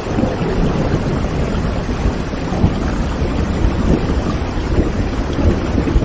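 Steady heavy rain with a low rumble of thunder underneath.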